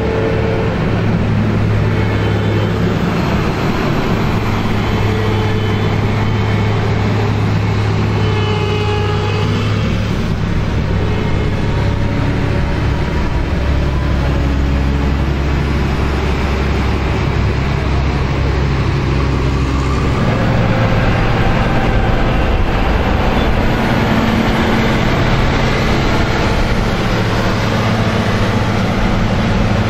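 Diesel engines of New Holland combine harvesters driving past in convoy: a loud, steady low engine drone. The engine note changes and grows a little louder about two-thirds of the way through as another machine comes close.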